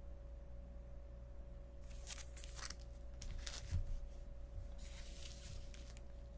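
Plastic-bagged comic books rustling as they are handled and sorted, in a few brief bursts with a soft low thump about halfway through, over a faint steady hum.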